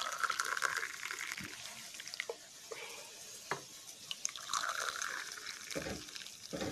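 Kashmiri pink tea pouring from a metal pot into glass cups, a splashing pour in two stretches with a few light ticks between.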